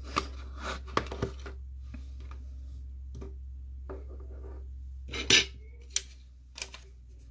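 Clicks and knocks of small stamping supplies being handled on a craft mat: the ink pad set back down and a plastic jar of embossing powder picked up, with the loudest short clatter about five seconds in. A steady low hum runs underneath.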